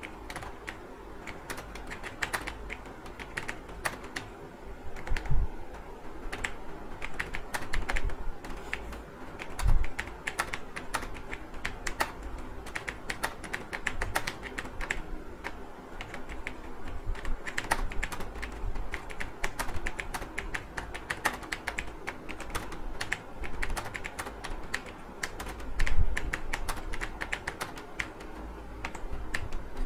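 Fast, continuous typing on a computer keyboard, key clicks in a steady stream, with a few heavier low thumps now and then.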